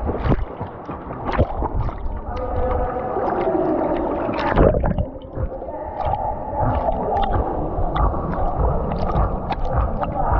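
Pool water sloshing and gurgling around a dog's back-mounted action camera as the dog swims, the microphone at the waterline so the sound comes muffled and bubbling, with splashes from its strokes.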